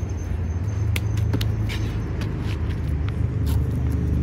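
A steady low outdoor rumble, with a scattering of short sharp taps and slaps as a parkour runner's feet and hands land on stone and concrete.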